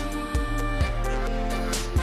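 Music: held instrumental notes over a low drum beat that hits three times.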